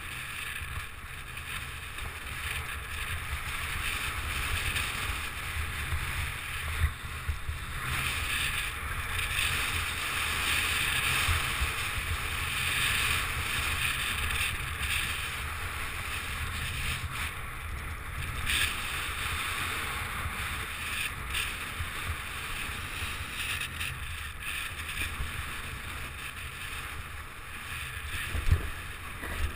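Wind rushing over an action camera's microphone on a fast downhill run, mixed with the steady hiss and scrape of edges sliding over packed, groomed snow. It swells and eases with speed and turns, with a few sharp knocks.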